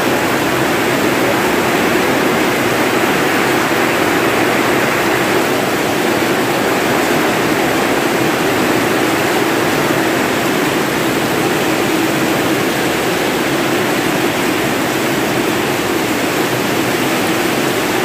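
Heavy rain pouring down: a steady, loud rush of rain.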